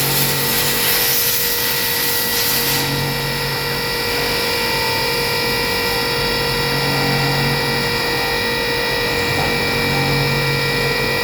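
CNC milling machine running a milling program: a steady whine of several fixed tones. A high hiss drops away about three seconds in, and a low hum swells and fades every few seconds.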